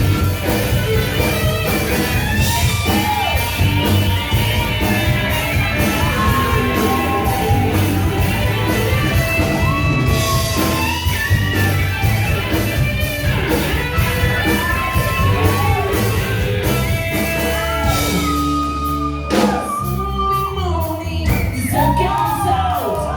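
Loud rock music with singing, guitar and a steady beat, played over a sound system in a large hall.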